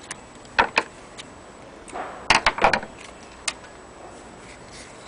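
A few sharp, irregular clicks and knocks: a pair about half a second in, a quick cluster of several about two and a half seconds in, and a last single click near the end.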